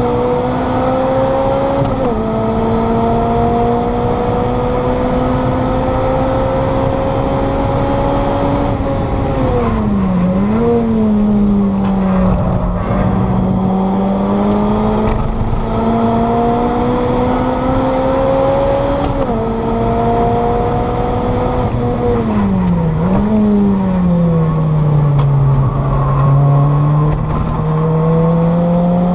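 Lotus Elise SC's supercharged four-cylinder engine heard from inside the cabin, the engine note climbing steadily under acceleration. It falls away about ten seconds in and again around twenty seconds, each time with a quick dip and rise in pitch, then climbs again near the end.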